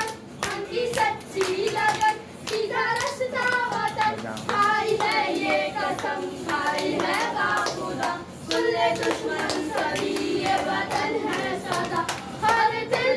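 Children singing a song together, accompanied by frequent sharp hand claps.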